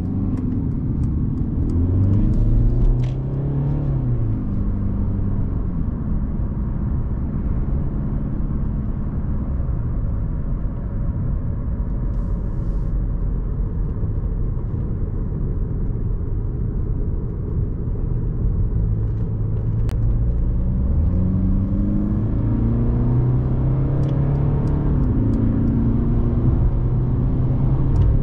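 A Mercedes-Benz C 220 d's 2.0-litre four-cylinder diesel engine pulls the car along with steady road rumble. The engine note rises under acceleration in the first few seconds, settles into an even cruise, then climbs again about two-thirds of the way through.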